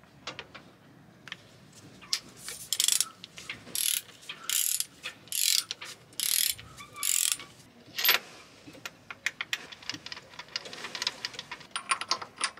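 Socket ratchet clicking in short bursts of rapid clicks as it is swung back and forth, tightening the castellated injector nuts on a Mercedes diesel engine to stop the injectors leaking.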